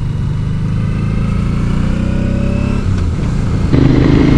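Motorcycle engine pulling and rising in pitch as it accelerates. There is a short break about three seconds in, then it runs louder near the end.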